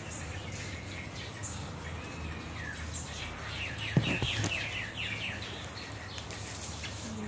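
Many small birds chirping noisily in quick falling calls, busiest around the middle, over a steady low hum. A single sharp knock about four seconds in is the loudest sound.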